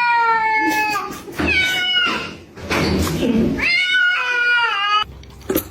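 A cat meowing loudly: three long, drawn-out meows, each sagging slightly in pitch. The sound cuts off suddenly about five seconds in.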